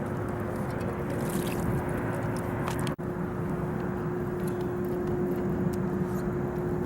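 A boat motor runs steadily with a constant hum, broken by a brief dropout about three seconds in.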